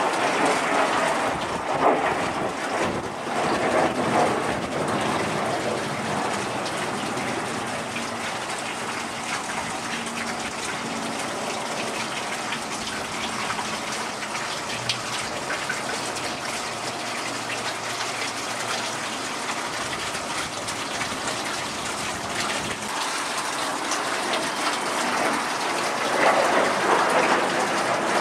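Jet noise from a MiG-17F fighter flying overhead: a steady rushing sound, louder in the first few seconds, easing through the middle, and swelling again near the end as the jet comes around.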